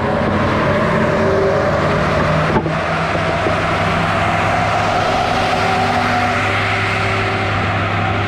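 A steady engine or motor running, with a brief dip about two and a half seconds in.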